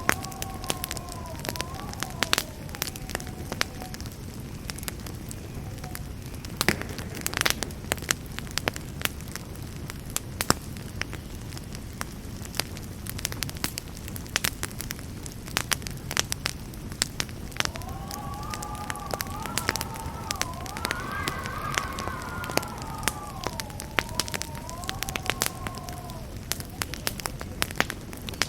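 Campfire burning, with constant crackling and sharp pops over a low, steady rumble. A wavering whistling tone runs through the first few seconds and returns for several seconds past the middle.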